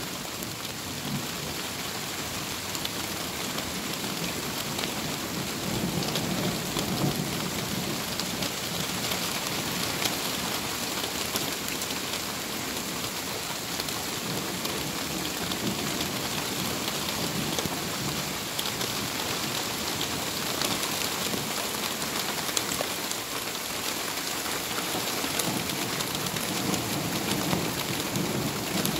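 Torrential rain pouring steadily, heard from under a pergola, with thunder rumbling low beneath it several times without a sharp crack; the rain largely covers the thunder.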